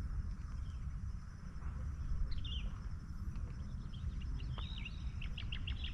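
Constant low rumble, which the uploader presents as the rumbling of Mount Merapi volcano. Small birds chirp over it, a couple of calls about two seconds in and a quick run of chirps near the end, with a faint steady high buzz.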